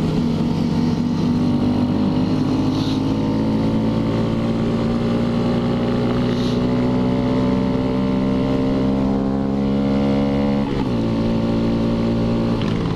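Honda Grom's small single-cylinder engine running under way on the road, its pitch climbing slowly, then dropping suddenly about eleven seconds in and settling lower.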